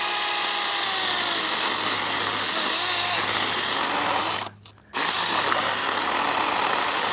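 Saker 4-inch 20 V battery mini chainsaw running and cutting through a thick piece of wood near its maximum capacity; its motor pitch sags as the chain bites. The saw stops for about half a second partway through, then runs and cuts again.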